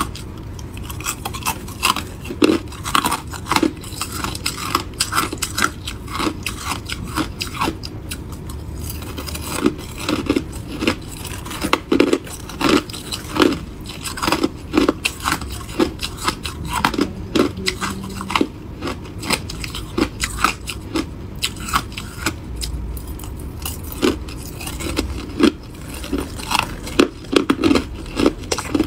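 Crushed ice being bitten and chewed close to the microphone: a quick, uneven run of sharp, crackling crunches.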